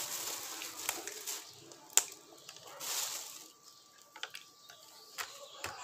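Close-up eating sounds: soft, wet mouth noises from a person chewing and sipping, with a sharp click about two seconds in and a few light taps near the end.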